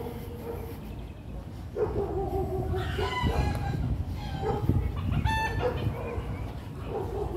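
Rooster crowing, starting about two seconds in, with more chicken calls following.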